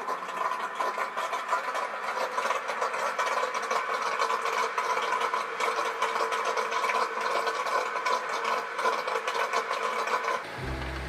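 A small motor or engine running steadily, with an even rattle over a fixed hum. About ten and a half seconds in it gives way to background music.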